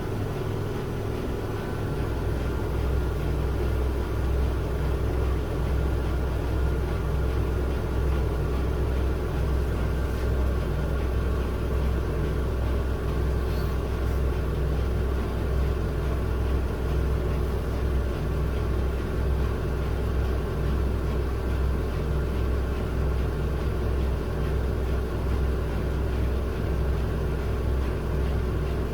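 Miele W1 front-loading washing machine with its drum spinning steadily, a continuous low hum that strengthens about two seconds in and then holds even.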